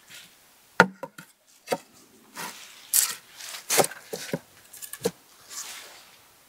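Wood knocking on wood with some scraping: logs of a raised log bed being handled and set in place, about six irregular knocks, the loudest about a second in.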